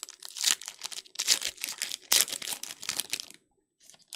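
A 2024 Donruss baseball hobby pack's wrapper being torn open and crinkled by hand, in a run of crackling bursts that stops about three and a half seconds in.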